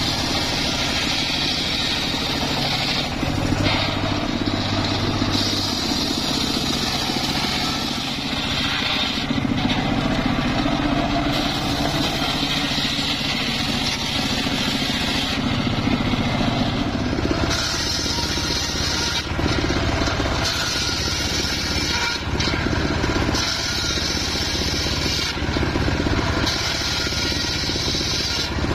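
Homemade engine-driven circular sawmill cutting a mahogany log into planks: the engine runs steadily while the large saw blade screams through the wood. The cutting noise comes and goes every few seconds as the log is fed.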